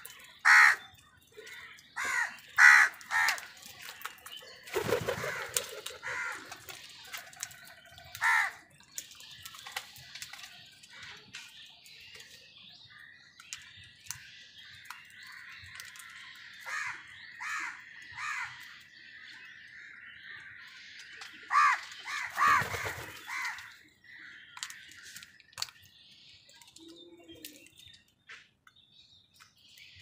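House crows cawing in short, harsh calls, several in quick succession in the first few seconds and another loud cluster a little past the twenty-second mark. Fainter, steady chirping of smaller birds runs underneath through the middle.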